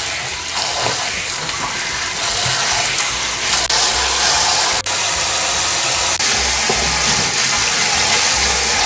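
Kitchen tap running steadily into a colander of mallow leaves in a steel sink, water splashing as hands rub and rinse the leaves to wash out their green juice.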